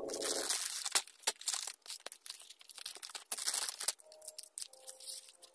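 Clear plastic packaging being handled and torn open by hand, crinkling and crackling in irregular bursts with sharp clicks. A steady buzzing tone stops about half a second in.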